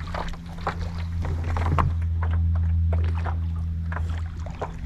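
Water lapping and slapping against a plastic kayak hull in light chop, with irregular small knocks, over a steady low hum that swells a little in the middle.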